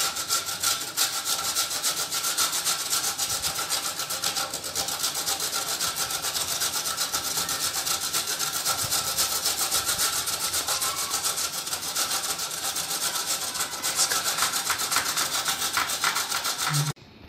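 Peeled pumpkin (petha) being grated on a stainless-steel box grater: rapid, even back-and-forth scraping strokes that stop suddenly near the end.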